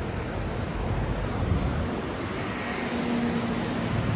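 Steady outdoor street noise: a low rumble of passing traffic with wind on the microphone.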